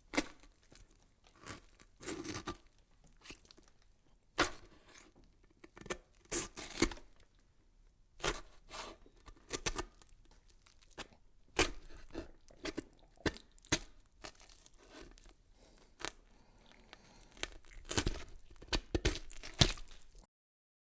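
Irregular crackling and rustling, sharp clicks and short tearing-like noises at uneven intervals, some in quick clusters. It stops abruptly near the end.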